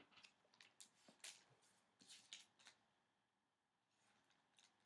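Faint rustling and light clicks of a trading card and a clear plastic card sleeve being handled, with a cluster of short crinkles in the first few seconds.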